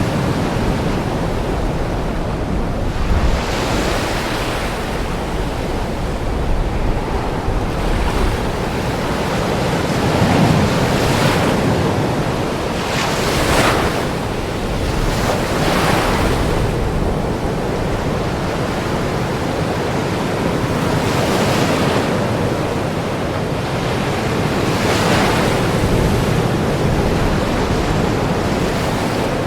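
Ocean surf: waves breaking and washing up, a continuous hiss that swells every few seconds as each wave comes in.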